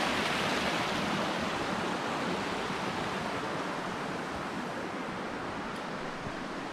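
Waterfall rushing, a steady hiss of falling water that slowly grows fainter.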